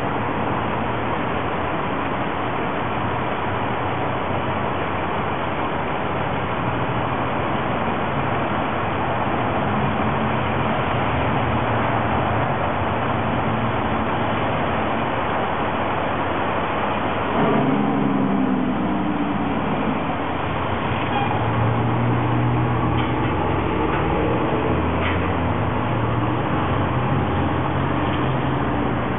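Steady city street traffic noise, with the engines of passing vehicles rising above it now and then.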